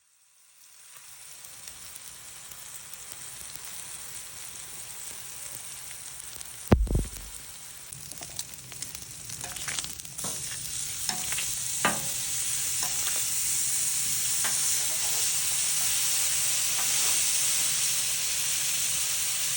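Bone-in steaks sizzling as they cook, a steady hiss that grows louder in the second half, with fat popping and crackling now and then. A single dull thump about seven seconds in.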